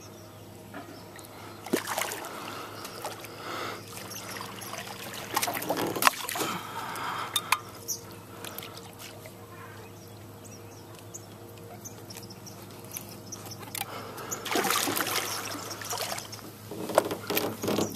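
A hooked bass splashing and thrashing at the water's surface beside the boat in several bursts, the biggest about fifteen seconds in and near the end. A faint steady low hum runs underneath.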